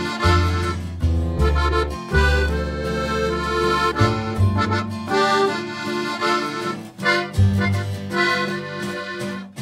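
Background music: held, sustained chords over a bass line that changes every second or so.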